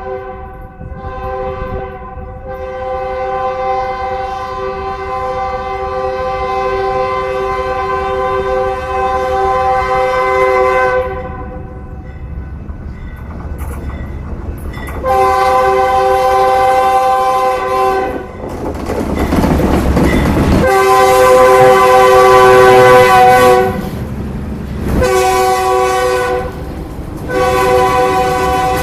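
Diesel locomotive's multi-chime air horn sounding a series of long blasts as a passenger train approaches, with a loud rushing noise between blasts a little past halfway. Engine and wheel noise builds as the locomotives draw alongside near the end.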